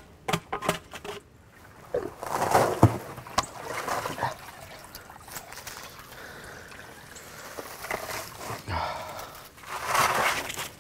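Water splashing and trickling off a soaked elk hide as it is hauled out of a plastic soaking barrel. The louder splashes come about two seconds in and again near the end, with dripping between. A few sharp knocks of a wooden stick against the barrel come at the start.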